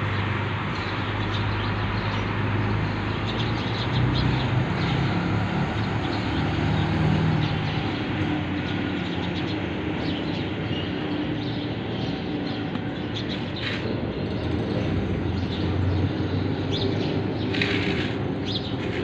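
Steady outdoor street noise with a low engine hum that swells and fades, and small birds chirping now and then, most clearly twice near the end.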